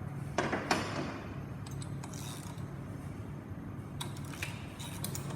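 Scattered metallic clicks and clinks from wrenches and a ratchet working the shaft and nut of a power steering pulley installation tool: two clicks about half a second in, a few more near two seconds and a short cluster about four seconds in, over a low steady hum.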